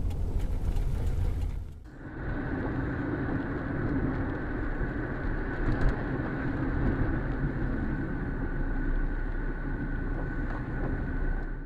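Steady in-car driving noise picked up by a dashcam: engine and tyre noise on a wet road, with one short knock about six seconds in. The sound changes abruptly about two seconds in, from one car's recording to another's.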